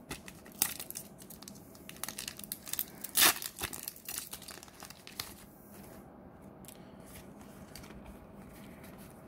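A trading-card booster pack's foil wrapper crinkling and being torn open, with a loud rip about three seconds in. The crackling stops after about five and a half seconds, leaving faint handling of the pulled cards.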